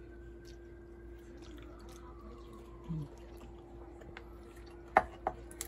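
Kitchen knife chopping crisp fried bacon on a wooden cutting board: mostly quiet, then a few sharp knocks of the blade on the board near the end, over a steady low hum.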